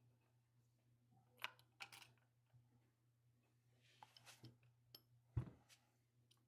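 Faint clicks and taps of small camera parts and tools being handled during reassembly: a few scattered clicks, the sharpest about five seconds in, over a low steady hum.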